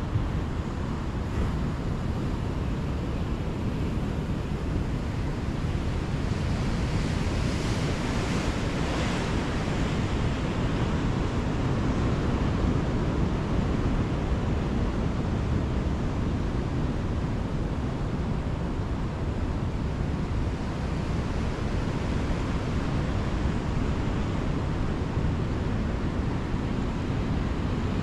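Ocean surf breaking and washing in, with wind buffeting the microphone; a wave's hiss swells and fades about a third of the way in.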